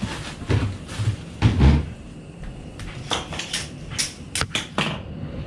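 Handling knocks and clicks as boiler and hose parts are moved and fitted: a few dull thuds, the loudest about a second and a half in, then a quick run of sharp clicks and knocks near the end.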